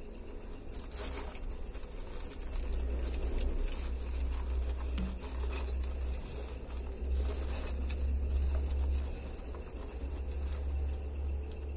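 Faint scattered clicks and scratchy rustling from a baby water monitor moving on bark-chip substrate while it feeds on a pinky mouse, over a steady low rumble.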